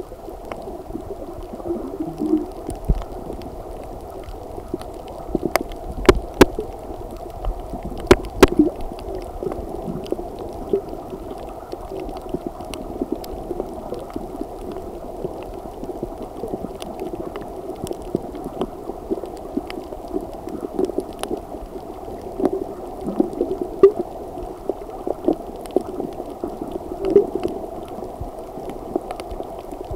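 Underwater sound picked up by a camera filming a coral reef: a steady muffled rumble with gurgling of water, broken by scattered sharp clicks, the loudest a few about six and eight seconds in.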